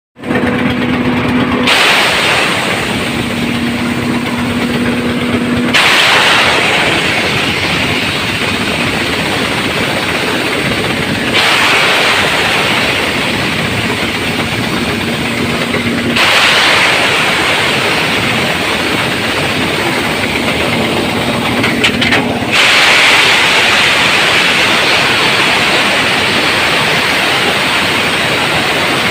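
Wood chipper running loud and continuously. Stretches with a steady engine hum alternate several times with louder, harsher grinding as material goes through the cutter.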